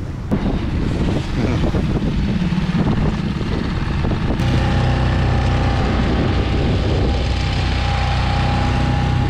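Small outboard motor driving an inflatable dinghy at speed, with water rushing past and wind on the microphone. From about four seconds in, the motor's hum is steady and clear.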